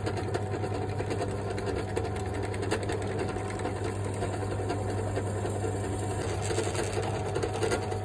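Bench drill press running steadily, its bit drilling into a thin 2 mm scrap metal plate, with a fine even chatter over the motor hum.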